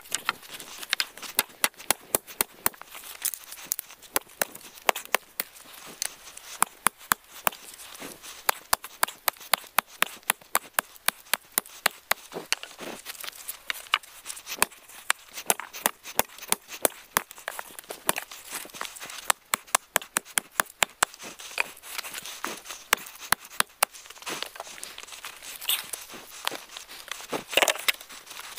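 Axe chopping on wood: rapid, irregular sharp knocks as the points of wooden stakes are hewn on a chopping stump.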